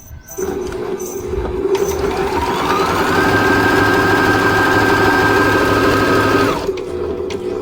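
Juki Allowne computerized sewing machine sewing a straight stitch. The motor starts about half a second in and speeds up with a rising whine to a steady high-speed run, then slows down near the end.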